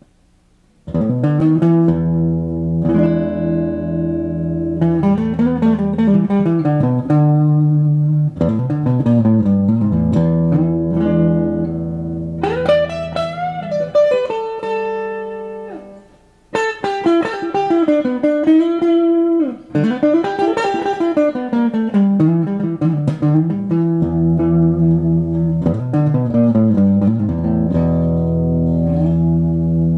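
Reissue '72 Thinline Telecaster electric guitar played clean on its neck pickup: chords and single-note lines with string bends, starting about a second in, with two short breaks about halfway through.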